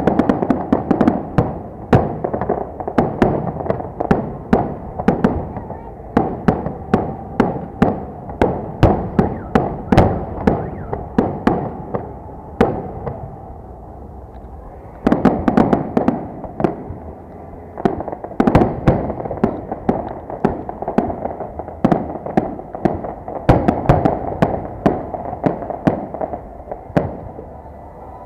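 Fireworks salute going off: rapid, loud bangs and crackles in quick succession, in two long volleys with a short lull about 13 seconds in.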